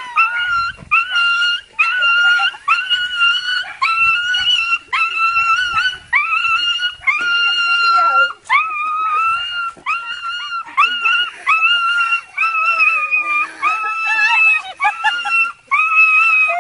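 A small dog whining and crying in high-pitched, drawn-out cries, about one a second over and over: excited whining as it greets a person who is hugging it.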